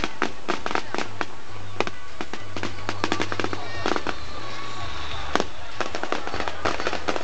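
Aerial fireworks display: shells bursting one after another, several sharp bangs and crackles a second with no pause.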